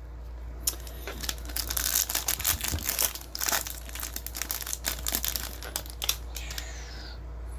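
Crinkling and tearing of a trading-card pack's foil wrapper as it is ripped open, a dense run of crackles that starts about a second in and eases off near the end.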